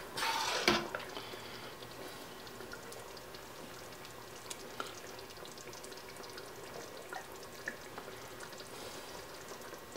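A ladle of thick meat sauce pouring and plopping onto a plate of fettuccine in the first second. This is followed by faint scrapes and a few small clicks as the metal ladle spreads the sauce on the plate.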